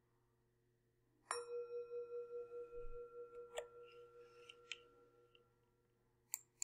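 A meditation bell struck once about a second in, marking the close of a guided meditation; its tone rings with a slow wavering pulse and fades over a few seconds. A few short clicks follow later.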